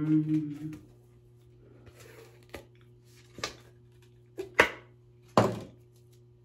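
A brief hummed vocal sound at the start, then a few sharp rustles and knocks from hands handling things, the loudest two near the end, over a faint steady hum.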